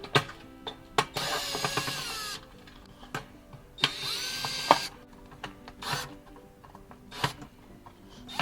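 Cordless drill-driver running in short bursts of about a second each, two of them loud, backing screws out of a dryer heating-element housing. Sharp clicks and taps of screws and sheet metal come between the bursts.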